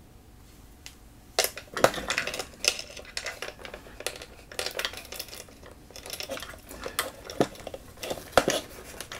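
Irregular clicking and light clinking of small hard parts being handled and set down on a pedalboard under assembly, starting about a second and a half in.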